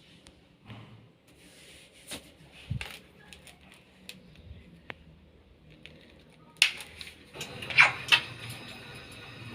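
Scattered light clicks and knocks, then a louder, denser clatter starting about two-thirds of the way through, as of small parts being handled.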